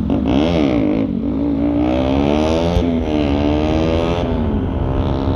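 Bajaj Pulsar RS200's single-cylinder engine through a newly fitted aftermarket exhaust, revving up and easing off several times while riding, its pitch rising and falling.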